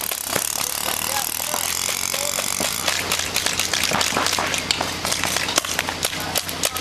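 Paintball markers firing reball balls in rapid, irregular shots, thickest from about three seconds in.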